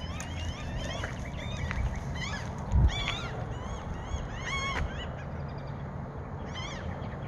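A flock of gulls calling overhead: many short, overlapping calls, with a thump about three seconds in.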